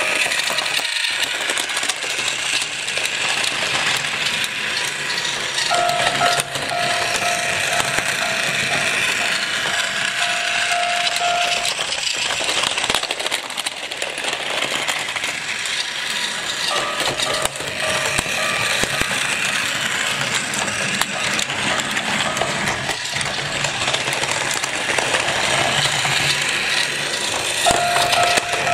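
Battery-powered Plarail toy trains running on plastic track: a steady whirr of the small electric motor and gears with the rattle of wheels on the rails. Three times a steady electronic warning tone from the toy level crossing pulses for a few seconds, the longest stretch about 6 seconds in.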